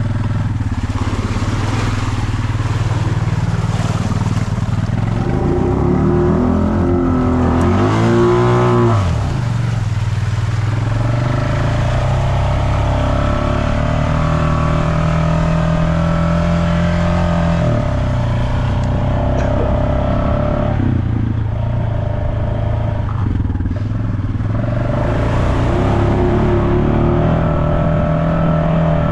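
Off-road vehicle engine running under way, rising in pitch and dropping back about eight to nine seconds in as it revs, then running steady with brief easings of the throttle.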